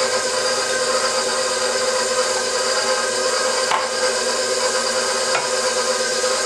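Electric stand mixer running steadily, its flat beater turning flour in a stainless steel bowl, a constant motor hum. A couple of faint clinks from a utensil in a glass bowl.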